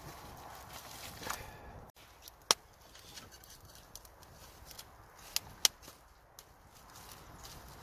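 A freshly lit kindling fire of damp twigs and wood burning: a steady hiss for the first two seconds, then quieter crackling with three sharp pops, one about two and a half seconds in and two close together a little past halfway.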